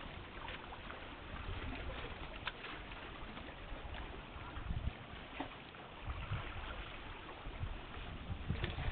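Seaside outdoor ambience: a steady hiss of wind and water, with gusts of wind rumbling on the microphone about six and eight seconds in.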